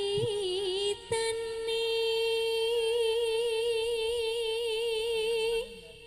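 Javanese sinden (female gamelan singer) singing solo: a short wavering phrase, a brief break, then one long held note with wide vibrato that fades out near the end.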